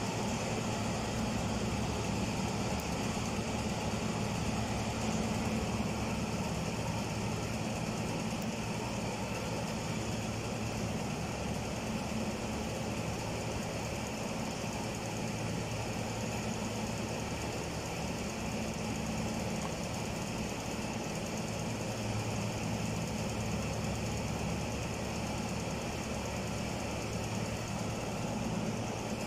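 Steady hum of a running machine: a low drone with a faint high whine over it.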